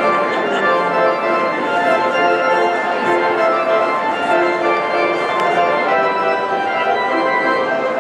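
Church organ playing the postlude: held chords with notes changing every second or so, a steady full sound.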